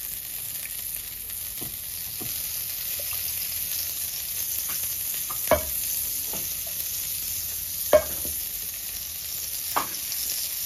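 Butter and oil sizzling on a hot tawa as they are brushed across the griddle with a silicone brush, a steady frying hiss. Three short sharp knocks come about halfway through, near the three-quarter mark and near the end.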